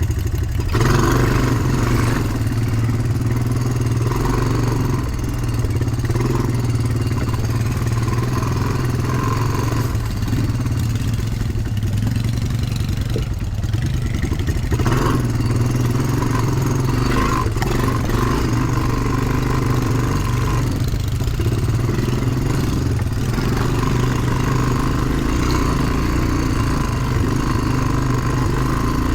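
ATV engine running at a fairly steady pitch while riding trail, with a few knocks and rattles scattered through.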